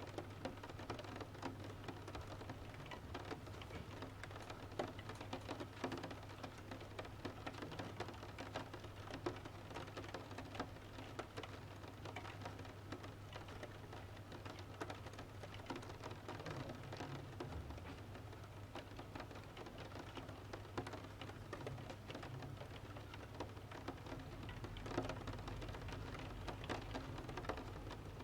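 Rain falling against a window with the irregular crackle and small pops of a wood-burning stove fire, over a low steady hum.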